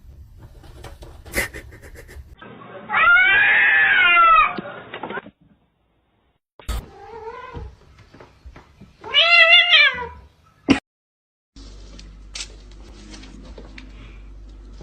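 Cat meowing: three drawn-out meows, each rising and then falling in pitch. The first and last are loud, the middle one fainter.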